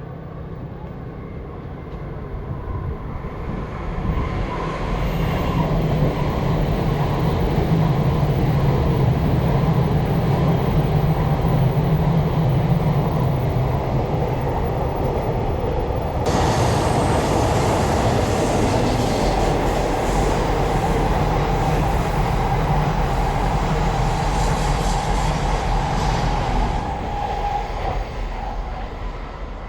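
Trains passing on the tracks below, led by a Shinkansen: a steady rumble builds over several seconds and holds. About sixteen seconds in a second train joins with a sudden hissing rush, and the sound fades near the end.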